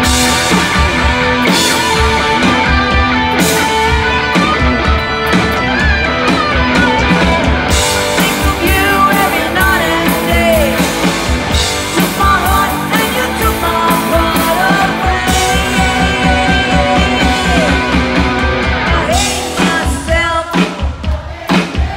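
Live rock band playing loud: distorted electric guitars, bass and a steady drum beat, with a woman singing lead over it. Near the end the playing breaks into short, choppy stabs.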